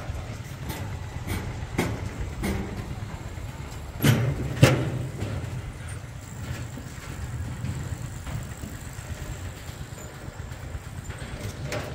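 Low, gusting rumble of wind on the microphone, with scattered light knocks and two louder thumps about four seconds in.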